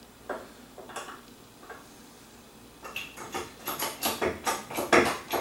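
Hydraulic hide stretcher being worked to stretch a deer hide: a few separate clicks, then from about three seconds in a quick, steadily louder run of mechanical clicks and knocks, about three or four a second.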